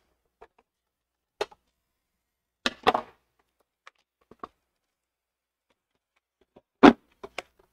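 Embroidery hoop being unclipped from an embroidery machine's arm and handled: a few scattered knocks and clicks, with a small cluster about three seconds in and the loudest knock near the end.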